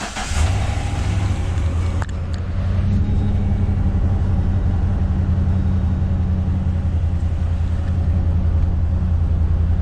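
Chevrolet 2500HD pickup's 6.0 L V8 firing up and settling into a steady idle. The engine has been logging a P0300 random-misfire code.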